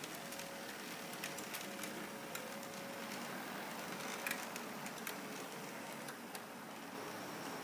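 H0-scale model Peter Witt streetcars running on their track: a faint steady motor whine under a hiss, with scattered light clicks from the wheels over rail joints and switch points, and one sharper click a little past halfway.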